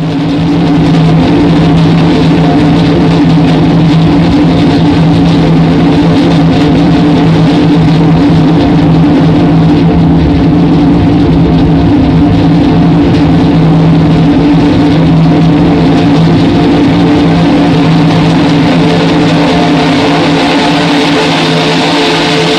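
Loud music with a low, steady held chord.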